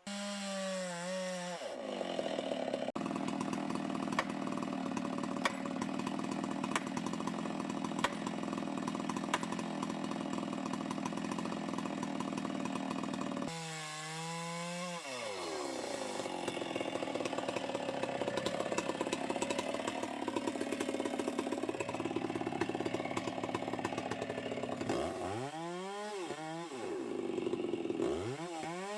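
Chainsaw starts at idle, revs up and runs at full throttle cutting into wood for several seconds, drops back to idle about halfway, then cuts again. Near the end the throttle is blipped up and down twice.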